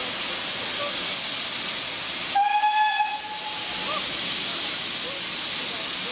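Steady hiss of steam from a steam locomotive, with one short blast of its whistle about two and a half seconds in.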